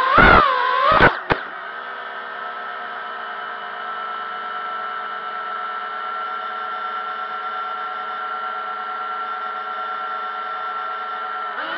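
Brushless motors and propellers of a 250-size quadcopter drone. In the first second or so the pitch wavers up and down and then drops, and from there they hold a steady, multi-tone whine at one speed. Near the end the pitch starts to rise again.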